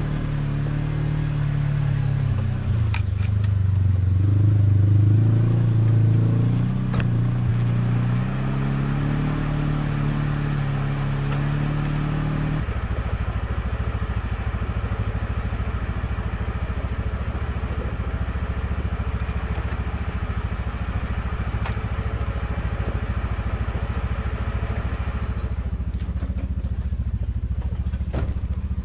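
Off-road vehicle engine running with its speed rising and falling in the first dozen seconds, then settling to a steady idle.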